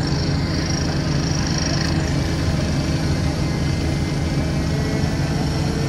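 Heavy diesel engine of a Terex mobile crane running steadily at a constant low pitch while it holds a suspended load. A thin hiss fades out about two seconds in.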